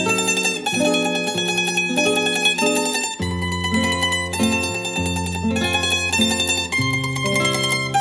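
Instrumental background music: a plucked-string melody over sustained bass notes.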